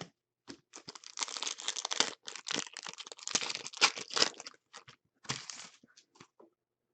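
Crinkling and tearing of a trading-card pack wrapper being opened and handled, dense for a few seconds, then thinning to scattered rustles and clicks.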